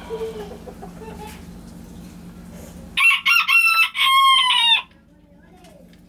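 A rooster crowing once, about three seconds in, a loud call of several linked notes lasting under two seconds, over a faint steady hum.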